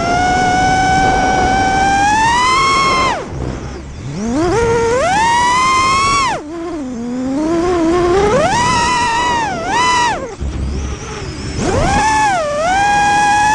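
Brushless Emax RS2206 1600 kV motors of a 6S FPV racing quadcopter whining, heard from its onboard camera. The pitch rises and falls with throttle: it drops sharply to near idle about three seconds in, climbs back, dips again around six and a half and ten seconds, then rises again near the end.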